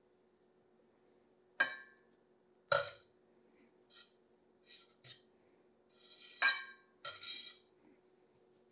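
A cooking utensil clinking and scraping against a stainless-steel frying pan and a glass mixing bowl: a few separate sharp clinks in the first half, then two longer scrapes near the end.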